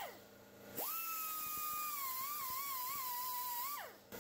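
Air-powered 90-degree die grinder with a Scotch-Brite disc whining at high speed while smoothing the blower case ribs. It winds down at the start, spins back up sharply just under a second in with its pitch wavering as it works the metal, and winds down again near the end.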